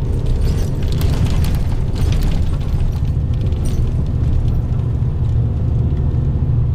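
Bus cabin noise: the engine and tyres give a loud, steady low rumble, with scattered light clicks and rattles over it.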